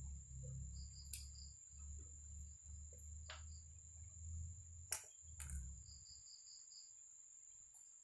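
Faint clicks and knocks of metal parts being handled as the intake manifold and throttle body come off a motorcycle engine, over a low rumble that stops about six seconds in. Faint insect chirping and a steady high whine sit behind it.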